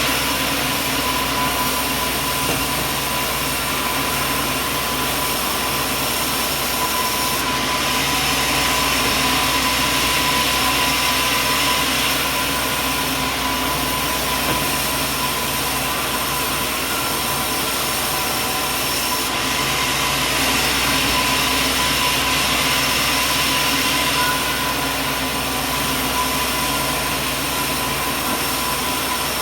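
Sawmill machinery running with a steady drone and a constant high tone. The hiss swells twice, about eight and twenty seconds in, for several seconds each time.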